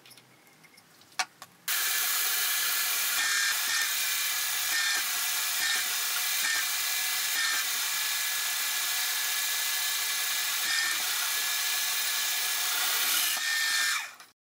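Twist drill in a milling machine cutting through a steel linear rail: a steady, loud, high-pitched cutting noise that starts suddenly about two seconds in and stops shortly before the end. A single click comes about a second in, before the drilling starts.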